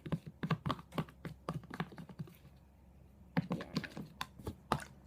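Spoon stirring a sticky glue-and-activator slime mix in a bowl, making quick irregular clicks and taps with a pause of about a second midway. The mixture has not yet activated.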